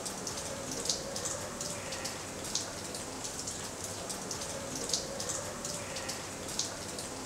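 Many drops of liquid falling irregularly from hanging infusion containers onto concrete blocks, a steady patter of small ticks with a few louder drips, about 1, 2.5, 5 and 6.5 seconds in. A faint steady hum sits underneath.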